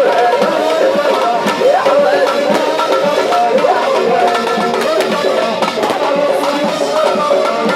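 Live Tunisian folk music: a wavering melody over a steady hand-drum rhythm.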